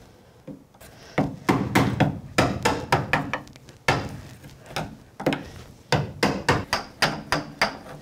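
A hammer repeatedly taps the handle of a screwdriver set into a dehumidifier's plastic drain port: a run of sharp taps, about three a second, with a short pause near the middle. The taps are knocking out the plastic membrane that seals the secondary drain port.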